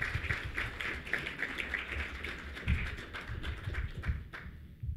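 Audience applauding, a dense patter of claps that dies away about four seconds in, with a few low thumps underneath.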